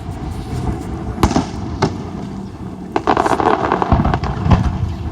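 Fireworks display: several sharp bangs, with a dense stretch of crackling about three seconds in, over a low rumble.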